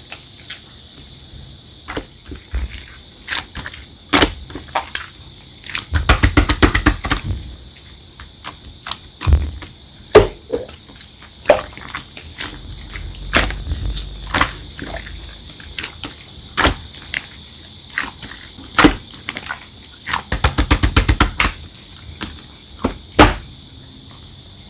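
Clear slime being squeezed and pressed by hand, giving sharp separate clicking pops, with two runs of rapid popping crackles as air pockets burst.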